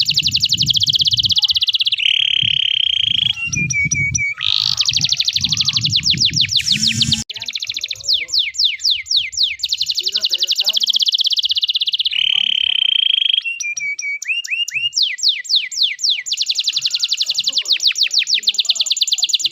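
Domestic canary of the loper type singing its nonstop song: fast trills of quickly repeated notes alternating with long, even rolls and lower buzzy phrases, with hardly a pause.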